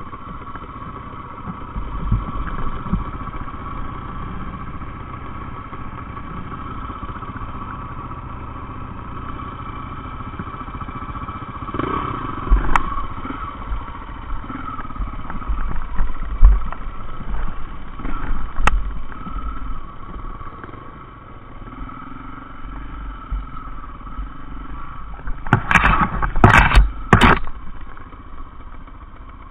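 Off-road dirt bike engines running at low speed, with the throttle opened in surges several times as the bikes climb a rough trail, and rattling and knocking from the rough ground. Three short, loud bursts come near the end.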